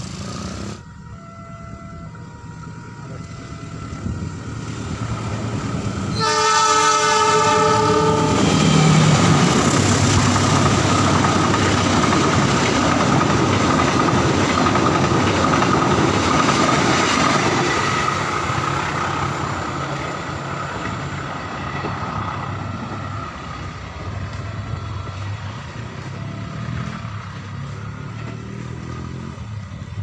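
A train horn sounds for about two seconds as the train draws near, then a passenger train passes close by with a loud, even rumble of wheels on the rails that slowly fades after about eighteen seconds.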